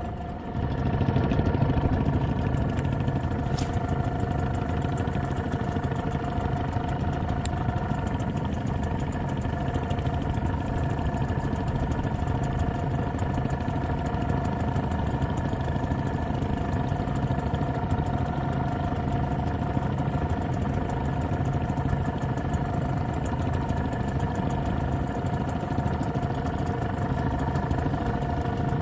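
Small boat's engine running steadily, getting louder about a second in and then holding an even note.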